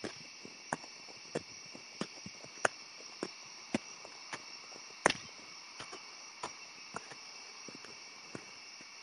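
Footsteps of a hiker walking on the swamp trail, about three steps every two seconds, one step a little louder about five seconds in, over a steady high chirring of insects in the forest.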